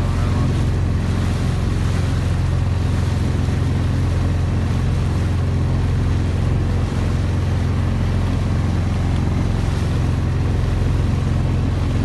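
Boat engine running steadily, a low drone, with the rush of wind and water over it.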